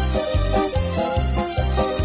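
Background music: a keyboard melody over a steady bass beat, about three beats a second.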